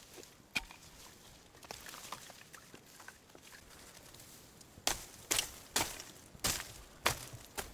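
A few faint scattered clicks, then, from a little past the middle, a run of about six sharp knocks roughly half a second apart.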